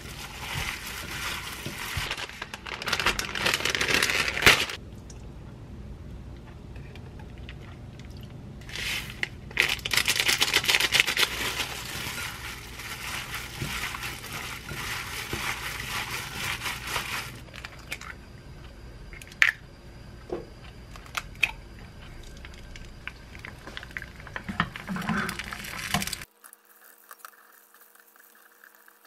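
Disposable plastic glove crinkling as a gloved hand squeezes and mashes crumbled tofu in a glass bowl, in long bursts with quieter stretches and a few sharp clicks. Near the end it cuts off to a faint steady hum.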